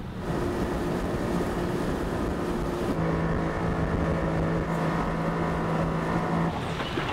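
Motorboat engine running at a steady speed, its tone shifting once about three seconds in.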